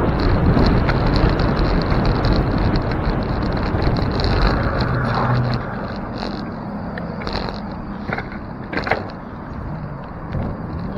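Wind rumbling on a bike-mounted camera's microphone, with tyre and road noise from a bicycle riding along a city street. The rumble eases a little past halfway, and a few sharp clicks come about eight to nine seconds in.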